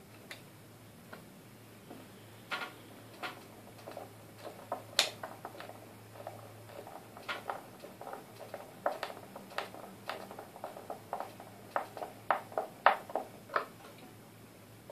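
Hand screwdriver driving the screws that fasten an amplifier board into a wooden subwoofer cabinet: a run of irregular small clicks, ticks and scrapes. They start about two and a half seconds in and go on until near the end.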